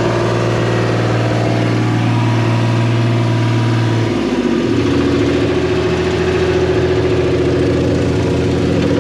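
New Holland L783 skid steer's diesel engine running steadily; about four seconds in its note shifts and settles into a different steady tone.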